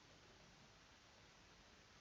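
Near silence: faint steady microphone hiss.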